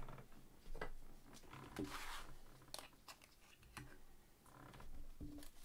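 Faint crinkling and clicking of trading cards and a plastic penny sleeve handled by gloved hands: a few short ticks and a longer rustle about two seconds in.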